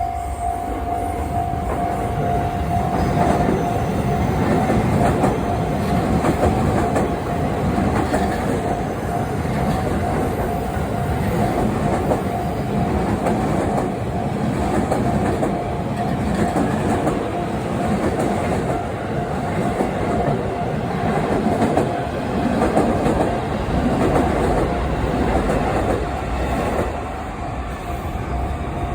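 A 15-car JR East E233 series 3000 electric train running past a level crossing, its wheels clacking over the rail joints under a steady rumble. A steady tone from the crossing's warning signal sounds throughout.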